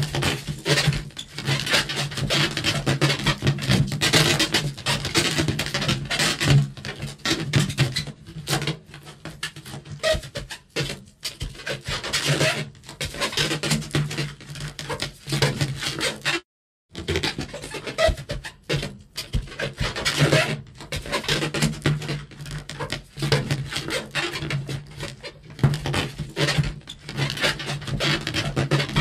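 Rubber balloon squeaking and rubbing in a quick, continuous series of short strokes, with one brief silent break a little over halfway through.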